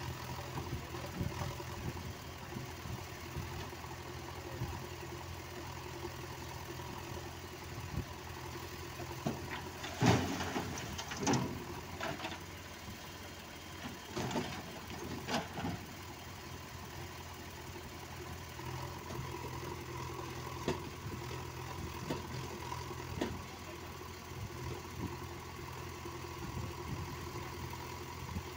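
Diesel engines of a JCB 3DX backhoe loader and an Eicher 485 tractor running steadily during mud loading. A few loud knocks and clanks come about ten to fifteen seconds in.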